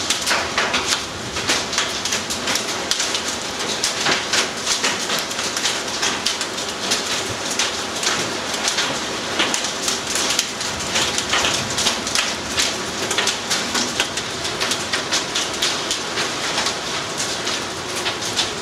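Heavy rain falling steadily, a dense patter of individual drops hitting close by, heard from inside a vehicle.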